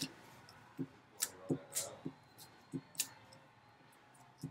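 Glue stick being rubbed along a paper cutout on a tabletop: a string of faint, short scrapes and light taps, about eight in all.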